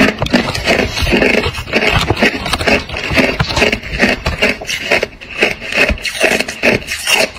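Hard clear ice being chewed and crunched in the mouth, close to the microphone: a continuous run of crunching and crackling.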